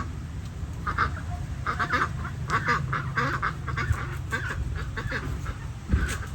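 Ducks quacking repeatedly in quick, irregular calls, over a steady low rumble.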